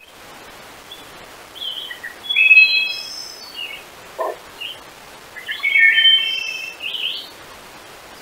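Songbirds singing: quick phrases of high whistled and chirped notes in two main bursts, about two and a half and six seconds in, over a faint steady hiss.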